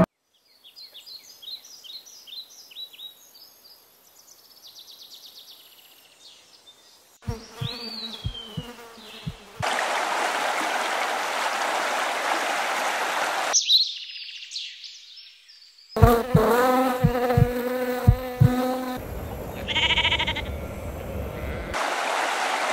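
Nature sound bed: a run of quick high chirps at the start, a flying insect buzzing close by twice, and a shallow stream rushing over stones in between and again near the end.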